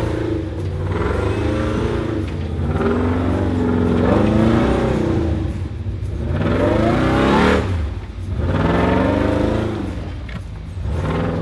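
Off-road Jeep engine revving up and down repeatedly under load, climbing a rough, rutted trail. The highest rev comes about two-thirds of the way through.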